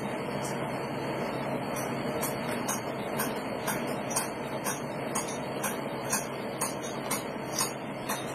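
Light, regular ticking clicks about two a second, starting about two seconds in, over a steady background hiss and hum.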